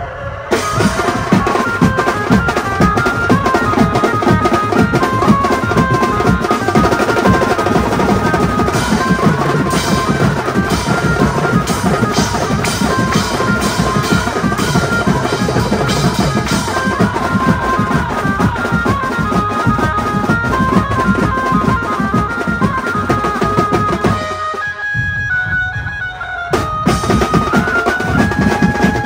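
A Mumbai banjo party band playing: fast, dense drumming on a set of stick-played drums under a repeating high melody line. Near the end the drums drop out for about two seconds, then crash back in.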